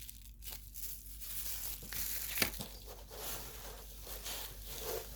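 Paper packaging rustling and crinkling as items are unwrapped and handled, with one sharp tap a little under halfway through.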